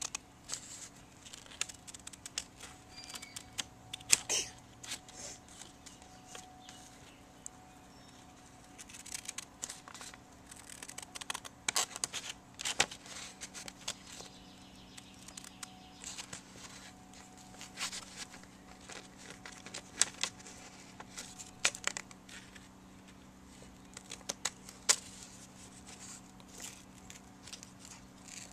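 Scissors cutting through folded printer paper, a long run of irregular snips with the paper rustling as it is handled.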